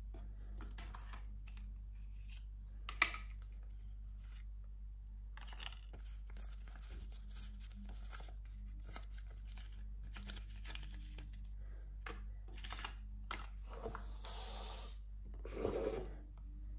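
Hands handling the contents of a smartphone box: scattered soft rustles, scrapes and light taps of paper cards, cable and cardboard. There is a sharp click about three seconds in, and a longer rustling scrape near the end as the phone is lifted out of its box tray, over a steady low hum.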